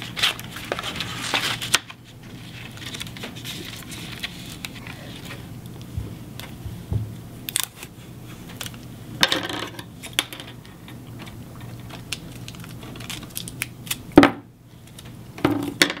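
Clear adhesive tape being pulled off its roll and torn, amid small clicks and rustles of hands working cardstock and wires. There is a longer scraping pull about nine seconds in and a sharp knock on the wooden table just after fourteen seconds.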